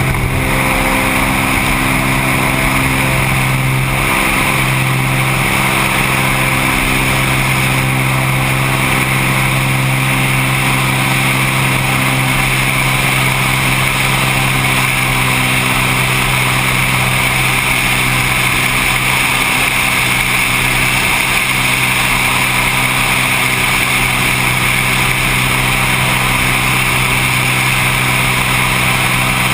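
Light seaplane's piston engine and propeller running loud and steady at an even pitch.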